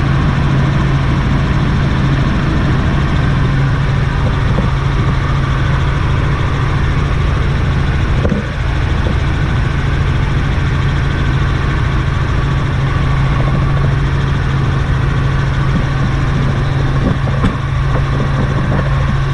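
Light helicopter's engine and rotors heard from inside the cabin in flight: a loud, steady drone with a strong low hum.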